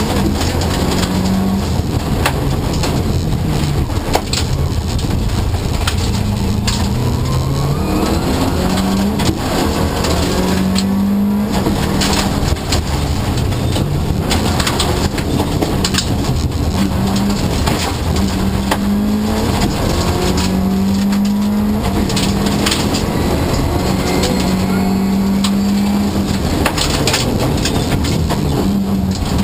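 Subaru Impreza Group A rally car's turbocharged flat-four, heard from inside the cabin, driven hard on gravel: it revs up and changes gear again and again. Many short sharp knocks and clicks sound over the engine.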